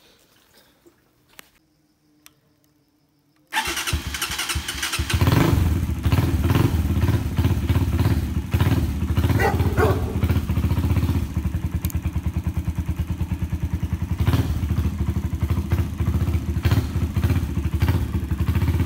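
A 150cc motorcycle engine starts suddenly about three and a half seconds in, builds up over the next couple of seconds, then runs steadily. A few faint clicks come before it starts.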